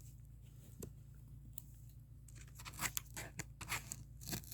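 Faint rustling of packaging being handled and pulled apart by hand, with scattered crackles and clicks in the second half.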